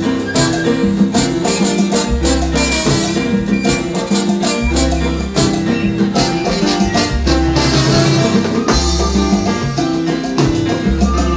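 Live salsa band playing: congas and timbales over piano and bass, with long low bass notes recurring every couple of seconds.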